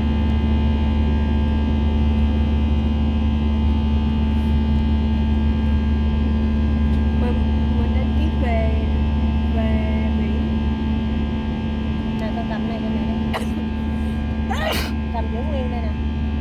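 Steady drone inside a passenger airliner's cabin: a deep engine and ventilation hum with several steady tones above it. Faint voices come through around the middle, a sharp click sounds about 13 seconds in, and a short burst of noise, like a sneeze or cough, comes about 15 seconds in.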